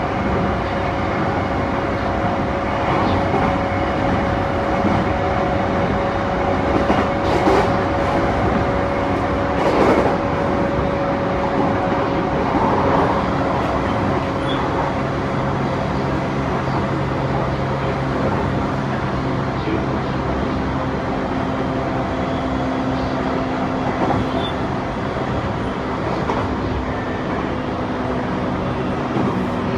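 Interior running sound of a JR East E235-1000 series electric train: a steady rumble of wheels on rail with a few knocks, and humming tones from its Mitsubishi full-SiC VVVF inverter and traction motors. A higher tone fades out partway through, and a lower pair of tones comes in about halfway.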